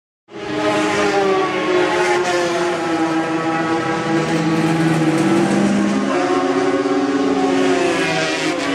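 Classic racing motorcycle engines running in the pit lane, cutting in a moment in. They hold a fairly steady, high engine note with small shifts in pitch, as if held at a fast idle and lightly blipped.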